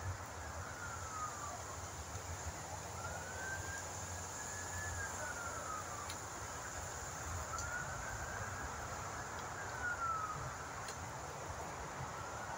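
A siren wailing faintly, its pitch slowly rising, holding and falling about three times, over a steady low rumble.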